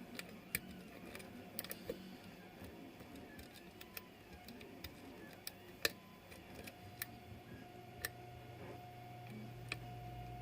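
Faint, irregular small clicks and ticks of a lock pick and tension wrench working the pins inside a pin-tumbler lock during single-pin picking. A faint steady hum comes in about two-thirds of the way through.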